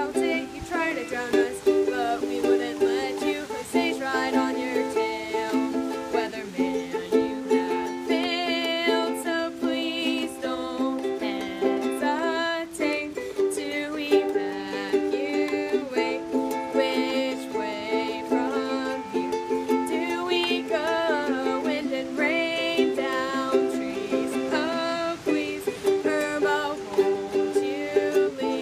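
Music: held chords with a wavering melody line above, changing every couple of seconds.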